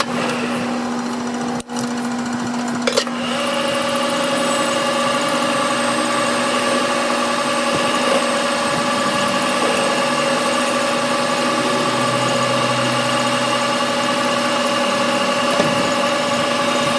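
Workshop machine running steadily with a hum. A couple of clicks come about three seconds in, and after them a higher whine sets in and holds steady.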